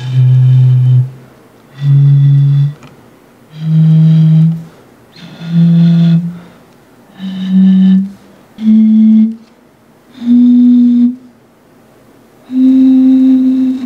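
Air blown across the mouths of eight plastic soda bottles partly filled with water, each sounding one hollow, flute-like note: a rising major scale of eight notes, do up to high do, one note about every second and a half, the last held longest. Each bottle with more water and less air inside gives a higher note.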